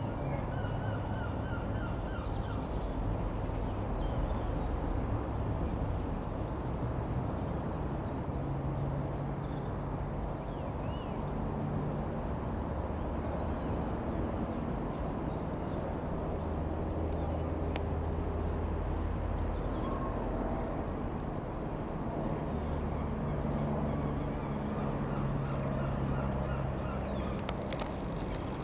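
Small birds chirping and twittering over a steady low drone with a slowly shifting pitch, like a distant engine.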